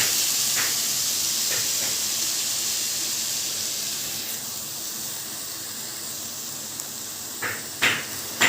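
Carrot halwa sizzling and hissing in ghee in the pan, slowly dying away as the heat is turned off. A few faint clicks, then two sharper knocks near the end.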